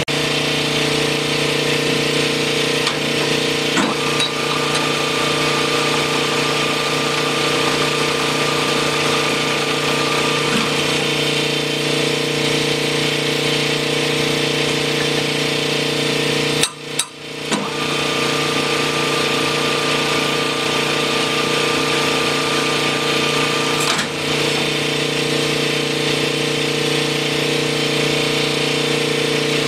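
Sunnen connecting-rod honing machine running with a steady hum as a connecting rod's big end is stroked back and forth on the spinning, oiled hone mandrel to bring the bore round and to size. The sound cuts out briefly about two thirds of the way through.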